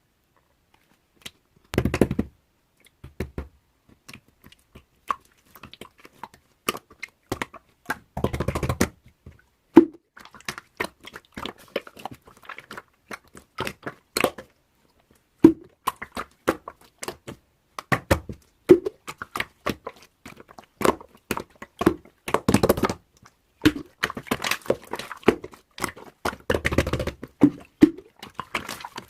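Objects being handled close to the microphone: an irregular string of sharp clicks and taps, with a few longer crunching, rustling stretches.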